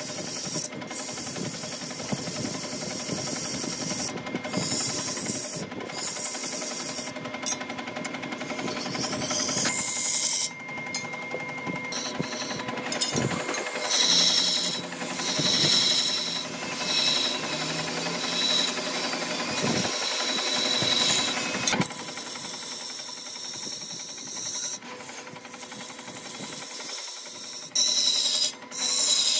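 Woodworking power tools running on wood, with the tool sound changing abruptly several times.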